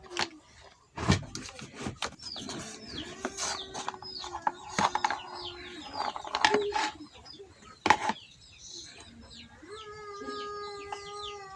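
Birds chirping in quick falling chirps, with sharp clicks and knocks from handling, and a steady held tone from about two and a half seconds in and again near the end.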